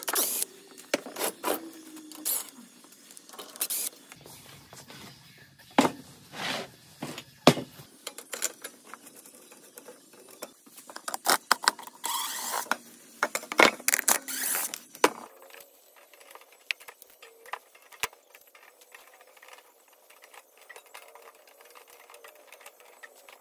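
Irregular clicks, knocks and clattering of hardware and metal parts being handled as a steel-and-plywood end table is taken apart, busiest in the first fifteen seconds. After that it goes quieter, with a faint steady hum.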